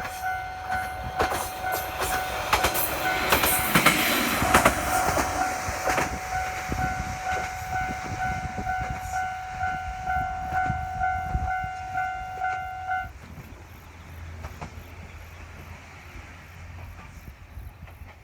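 Japanese level-crossing alarm ringing, a steady electronic tone with a pulsing higher note about twice a second, while a diesel railcar passes over the crossing with wheel clickety-clack, loudest a few seconds in. The alarm cuts off suddenly about two-thirds of the way through, leaving a low rumble as the train moves away.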